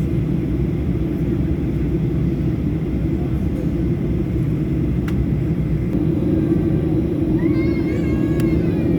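Steady low rumble of a Boeing 737 airliner heard from inside the cabin. About three-quarters of the way through, a brief high-pitched voice with a wavering pitch rises over it, and just before the end a steady low engine hum comes in.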